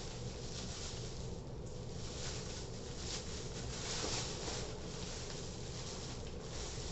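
Bubble wrap and plastic packaging rustling and crinkling as it is unwrapped by hand, with small irregular handling noises throughout.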